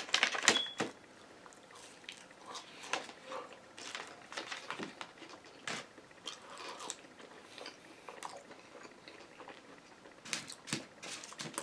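A person biting and chewing waffle fries and a chicken sandwich, with scattered crunches and clicks; the loudest cluster comes in the first second.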